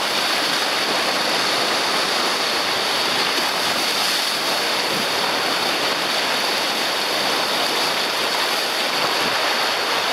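Rough sea water churning in a steady, continuous rush of surf.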